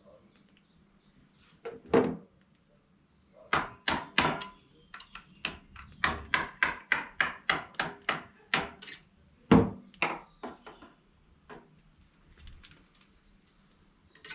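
Muzzleloading rifle being loaded: a ramrod knocking down the barrel to seat the charge, in a quick run of sharp taps about three a second, with a few louder single knocks before and after.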